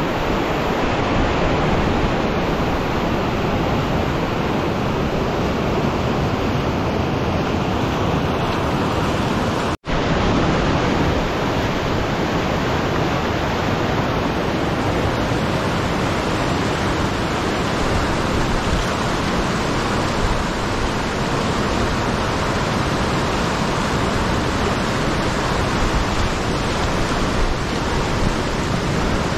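Steady rushing roar of a fast, silty river running through whitewater rapids. It cuts out for an instant about ten seconds in.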